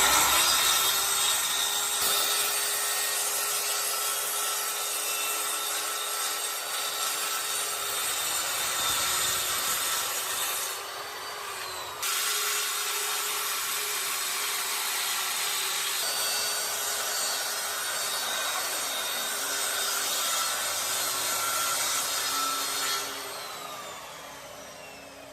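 Repaired handheld electric saw running and cutting through wood, a steady motor whine under the noise of the cut, with a short let-up about eleven seconds in. Near the end the motor winds down, its pitch falling.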